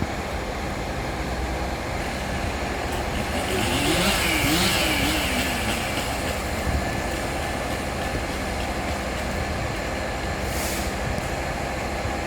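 Heavy truck engine running steadily, swelling louder with a hiss and a wavering pitch about four seconds in.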